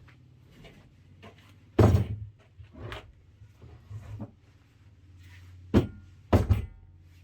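Several sharp knocks and thumps, the loudest about two seconds in and a double knock near the end, over a low steady hum.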